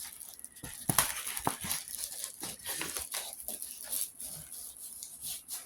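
A rolled diamond painting canvas being unrolled by hand: crinkling and rustling with scattered sharp taps, the loudest about a second in.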